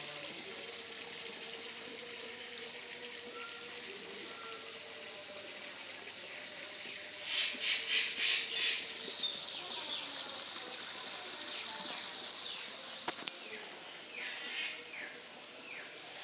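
Water running into a shallow koi pond over stones, splashing and trickling steadily, with a louder stretch of splashing about seven to ten seconds in.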